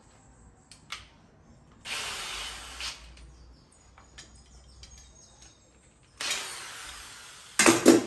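Cordless drill boring into car-body sheet metal in two short runs of about a second each, then a few loud sharp knocks near the end.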